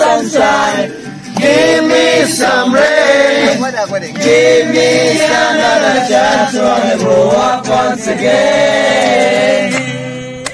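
A group of men singing a song together in chorus, with long held notes, easing off near the end.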